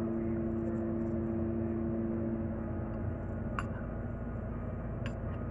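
Steady hum of a window air conditioner, with a two-note drone in it that fades out about halfway through. A spoon clinks lightly twice in the second half.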